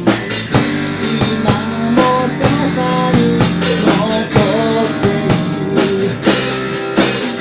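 Rock band playing a song: a drum kit keeps a steady beat under sustained guitar chords and a melody line.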